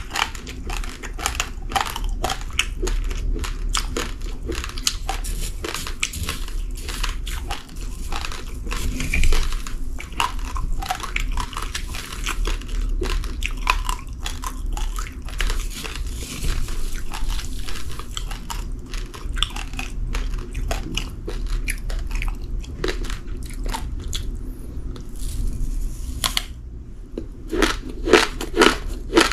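Someone chewing raw, uncooked rice grains: a dense, continuous crunching of many small cracks. Near the end it turns into louder, separate crunches about two a second.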